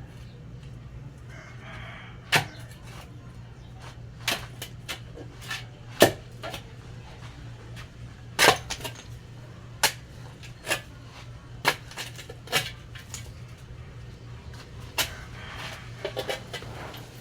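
About a dozen irregular, sharp knocks and clacks of hard objects striking over a steady low hum, while a rooster crows in the background near the start and again near the end.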